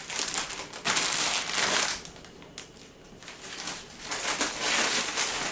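Plastic shopping bag and plastic food packets crinkling and rustling as they are handled: two bursts of about a second each near the start, a lull, then longer rustling from about four seconds in.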